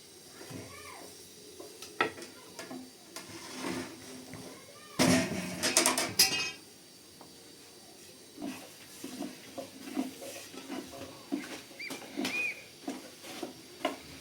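Pots and kitchen utensils knocking and clattering as they are handled, with a dense burst of clatter about five seconds in.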